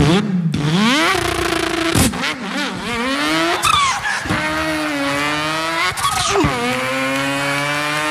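A man imitating a car engine with his voice, revving so the pitch climbs and then drops sharply about three times, like a car accelerating up through the gears.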